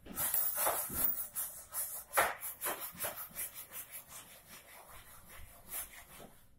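Hand-sanding a bare wooden chair frame: quick back-and-forth rubbing strokes of abrasive on wood, fading in the second half.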